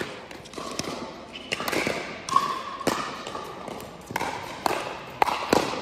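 Pickleball paddles striking a plastic ball, with the ball bouncing on the indoor court, in a doubles rally. About eight sharp knocks, spaced unevenly and coming faster in the second half.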